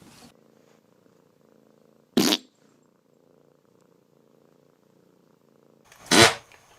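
A cat purring faintly and steadily, broken by two short, loud noises: one about two seconds in and a longer one near the end.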